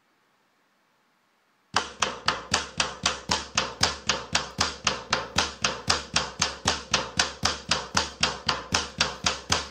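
Instrumental backing track of a pop song starts about two seconds in: steady repeated piano chords, about four strikes a second.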